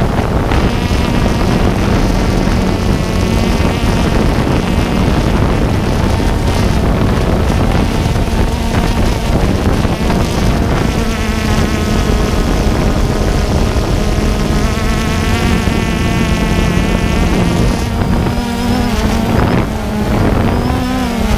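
DJI Phantom quadcopter's motors and propellers buzzing steadily close to the microphone, the pitch wavering up and down in places as the drone speeds up, slows and turns.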